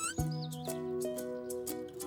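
Background music of gentle held notes over a sustained bass, with a few short high chirping glides near the start.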